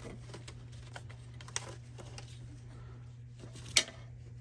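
Light clicks and taps of hands working a small hose fitting and its spring clip loose, with one sharp click near the end. A steady low hum runs underneath.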